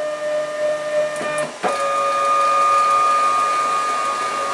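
NEMA 23 stepper motors of a CNC-converted Sieg X2 mini mill driving the table along its ball screws, with a steady pitched whine. About a second and a half in, the pitch shifts with a click and the whine grows louder as the motion changes.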